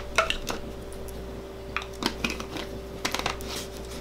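Metal spoon tapping and scraping against a glass applesauce jar: a handful of scattered light clinks, with the jar's lid being screwed on near the end.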